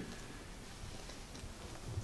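Quiet room tone with a faint low hum, and a single faint click right at the start.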